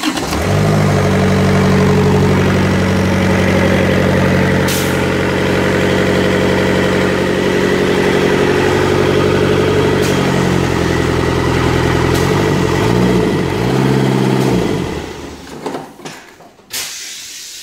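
Freshly overhauled Kubota engine starting on its first run after the rebuild, quickly rising to a steady run. About ten seconds in its speed begins to waver, and after about fourteen seconds it dies away to a stop, followed by a brief hiss.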